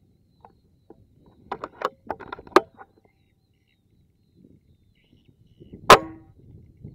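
Hummer X PCP air rifle firing a single slug shot about six seconds in: a sharp crack with a brief ringing tail. Before it, about two seconds in, comes a quick flurry of sharp clicks and short chirps.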